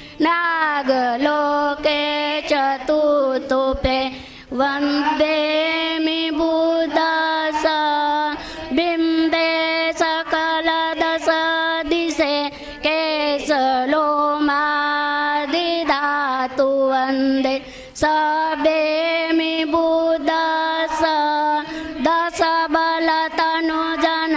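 Women and girls chanting a Buddhist devotional verse together in a slow, steady melody, with long held notes and short breaks between lines.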